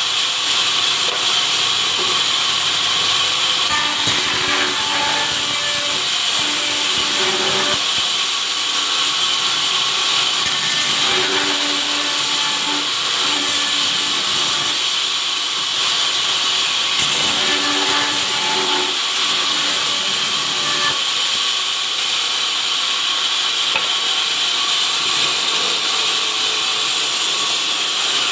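Vertical sawmill machine running on its first test, a loud, steady mechanical noise with a high hiss and faint tones that waver underneath.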